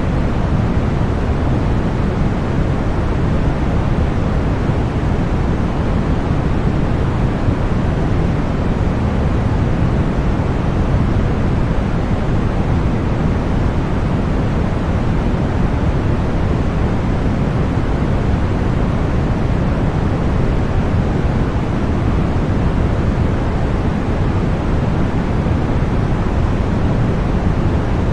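Generated white noise: a steady, unchanging hiss, fuller in the low end than in the treble, used for sleep and tinnitus masking.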